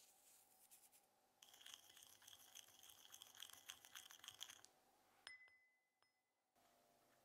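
Faint scraping and swishing of a wooden spatula stirring dried herbs into oil in a small ceramic bowl, a quick run of strokes lasting about three seconds. The run ends in a single clink against the bowl that rings briefly about five seconds in.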